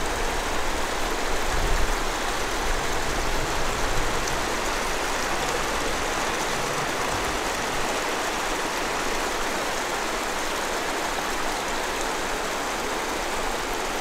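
Steady rush of creek water flowing over and between the rhyolite rocks of a shut-in, an even hiss-like noise with a low rumble underneath.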